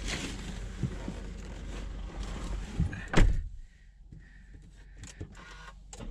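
A car door shut with a single loud thump about three seconds in. Before it, a running vehicle and outdoor noise come in through the open door with small knocks of movement; after it the cabin is much quieter.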